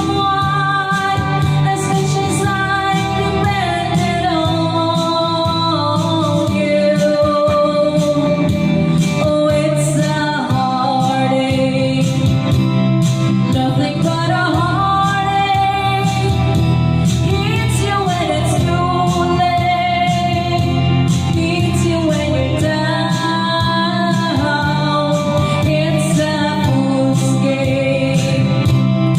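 Music: a song with a sung vocal line over instrumental backing.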